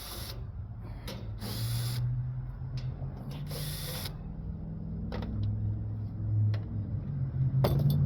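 A power driver spinning screws out of a central air conditioner's sheet-metal cabinet in about four short bursts, with a few clicks between them. A low steady hum runs underneath and grows louder toward the end.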